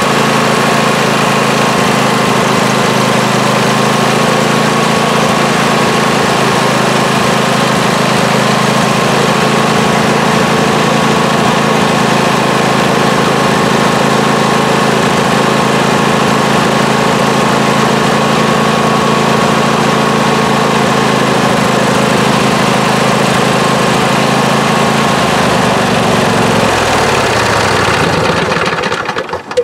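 Briggs & Stratton 26 HP twin-cylinder lawn tractor engine running steadily at full throttle. Near the end it is shut off, and its pitch falls as it winds down to a stop.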